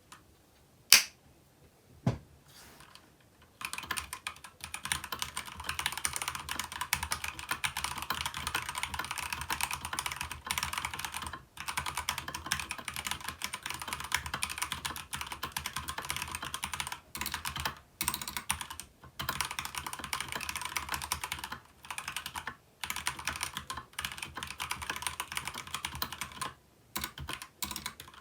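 Keychron K2 v2 mechanical keyboard with Gateron Red linear switches being typed on fast and continuously, with a few short pauses. Two sharp single clicks come about one and two seconds in, before the steady typing starts about three and a half seconds in.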